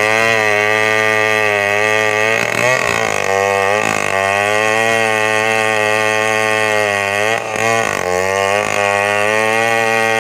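Two-stroke chainsaw running at high revs while ripping lengthwise through a coconut log. The engine's pitch dips and recovers twice as the cut loads it.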